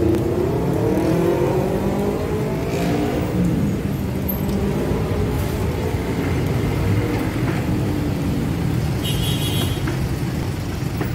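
Road traffic crossing at a railway level crossing: a box truck's engine pulls away close by, its pitch rising over the first few seconds, over the steady rumble of cars and motorcycles.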